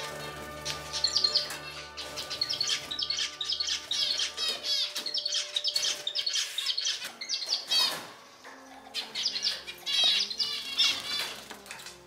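Small cage birds chirping and twittering in quick hooked notes, over background music with held notes, with a few sharp rustles or flutters among them.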